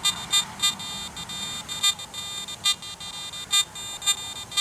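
Garrett AT Max metal detector in all-metal mode giving a steady buzzy threshold tone broken by about six short, louder beeps as the coil passes over a few flakes and a piece of wire gold. The beeps are the detector picking up the small placer gold at about 2 to 2.5 inches, with sensitivity at maximum.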